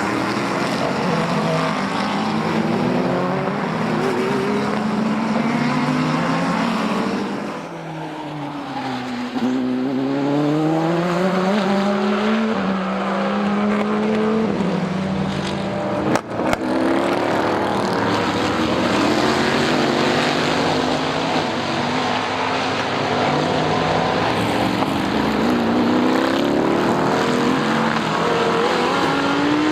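Several race car engines running at speed past the track, their pitch climbing and falling as the cars accelerate, shift and brake, with more than one car heard at once. The sound eases briefly about a quarter of the way in, and there is a single sharp click a little past the middle.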